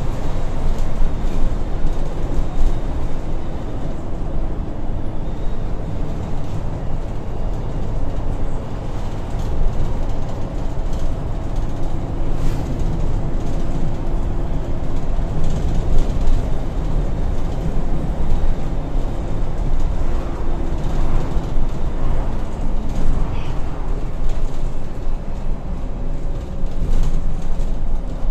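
Cabin noise of a Volvo B8RLE single-deck bus under way, heard from inside: the rear-mounted six-cylinder diesel and the tyres give a steady low running noise. A faint engine and driveline whine shifts in pitch now and then, and the body gives occasional knocks and rattles.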